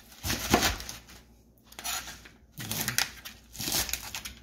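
Chef's knife cutting through crisp romaine lettuce on a cutting mat: a few crunching cuts about a second apart, the lettuce being chopped into half-inch pieces.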